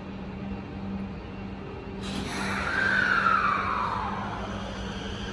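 Tokyo Metro Tozai Line train standing at an underground platform, giving a steady electrical hum. About two seconds in, a hiss starts and a whine falls steadily in pitch over a couple of seconds, just before the train pulls away.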